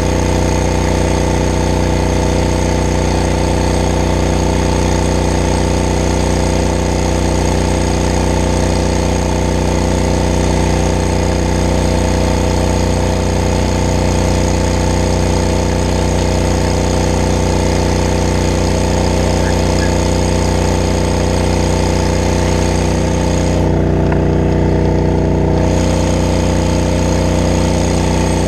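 Brush truck's pump engine running steadily under the hiss of a hose stream spraying water. The hiss cuts out for about two seconds near the end while the engine keeps running.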